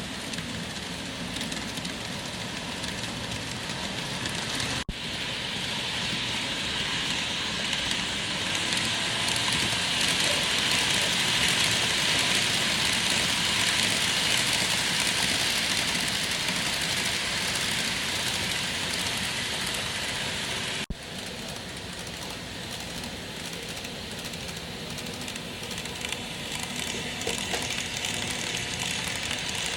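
N-gauge model train running on layout track: a steady hiss and rumble of the small motor and wheels, growing louder through the middle stretch and fading again, with abrupt cuts about five seconds in and near twenty-one seconds.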